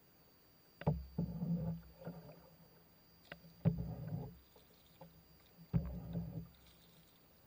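Wooden paddle strokes in river water from a small boat: three strokes about two and a half seconds apart. Each is a sharp knock followed by a short watery swish.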